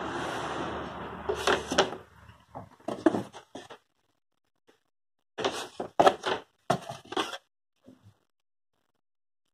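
Thin laser-cut wooden sheets of a model boat kit being handled. A sheet slides over another with a scraping hiss, then comes a run of light knocks and clacks in several groups as the sheets are lifted and laid back down.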